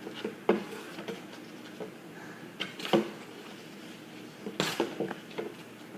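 Plastic glue bottles being shuffled around on a table: scattered light knocks and clicks, the loudest about halfway through and another cluster near the end.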